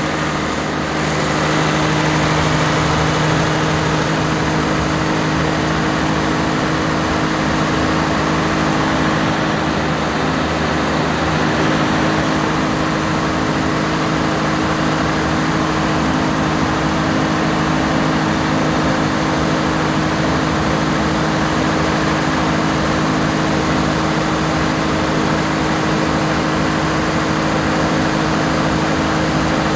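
A generator set's 1106 six-cylinder diesel engine running at a steady, even speed with no hunting, its injection pump droop freshly adjusted to hold the speed stable under load changes.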